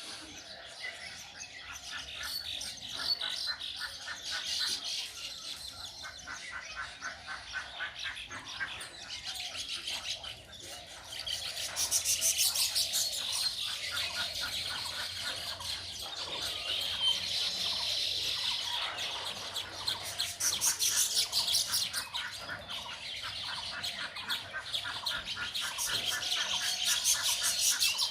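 Birds chirping and calling, many quick calls overlapping. The chorus grows louder about twelve seconds in.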